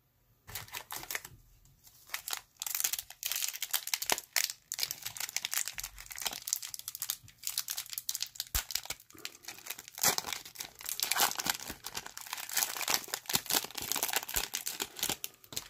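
Plastic wrapper of a baseball card pack crinkling and tearing as it is opened by hand: a dense, irregular crackle from about half a second in.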